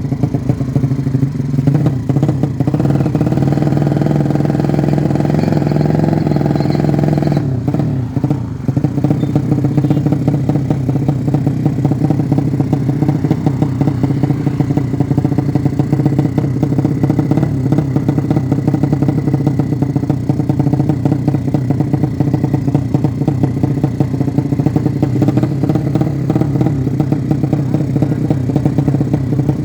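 A newly built motorcycle engine on its first road test, running steadily, with a short dip in power about eight seconds in before it picks up again.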